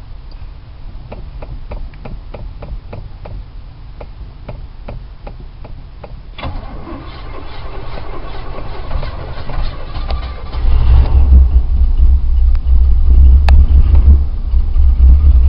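Older car engine, flooded, being started while the gas pedal is pumped: light clicks about twice a second, then the starter cranks for about four seconds. The engine then catches about ten seconds in and runs with a loud low rumble.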